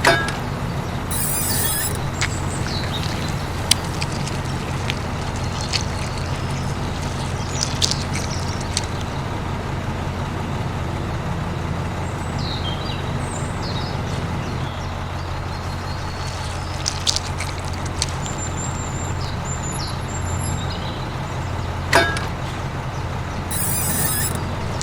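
Steady low motor hum, with scattered sharp clicks and knocks.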